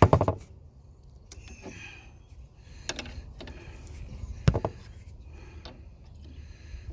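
Scattered metal clicks and knocks of hand tools on the diesel generator's engine parts, with the loudest knock about four and a half seconds in.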